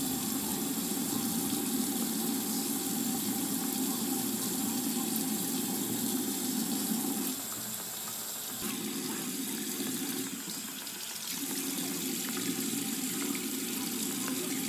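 Tap water running into a sink, a steady rush that dips briefly twice, about seven and ten seconds in.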